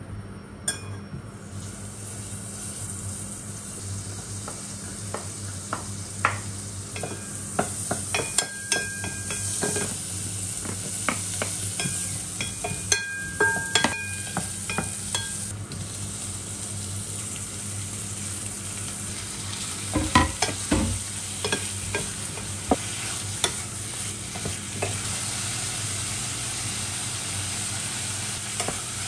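Diced onion frying in oil in a saucepan: a steady sizzle that starts about a second in, with frequent clicks and scrapes from a wooden spatula stirring it against the pot.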